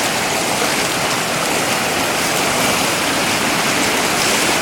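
Floodwater rushing over a bridge: a steady, loud rush of torrential water.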